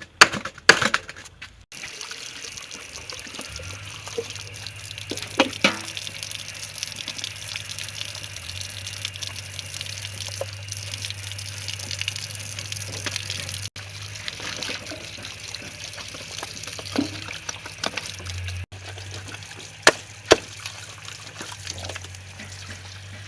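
Steady running water with a low hum beneath it, broken by a few short knocks: a pair about five seconds in and another pair about twenty seconds in.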